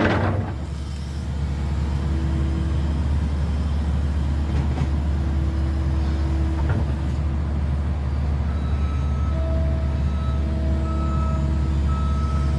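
Kobelco SK200-10 excavator's diesel engine running steadily, with a short loud burst of hiss right at the start. In the second half, faint whining tones switch on and off.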